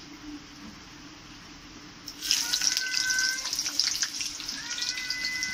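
Chopped onions going into hot oil in a kadai and sizzling loudly with crackles, starting suddenly about two seconds in.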